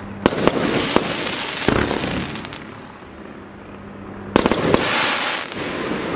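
Weco 'Golden Phoenix' firework battery firing. A few sharp bangs come in the first two seconds and three more about four and a half seconds in. Each group is followed by a fading hiss as the golden tails burn out.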